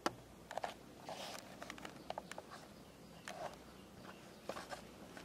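Faint, irregular light clicks and scuffs from a small dog moving about on concrete on a metal chain leash.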